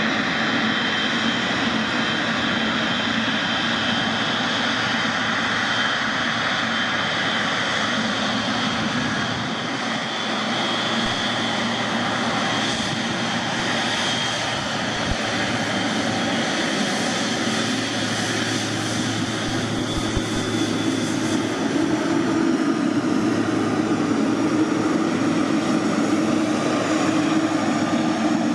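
Jet airliner engines running with a steady high whine over a continuous rushing roar. From about three-quarters of the way through, a lower rumble grows louder.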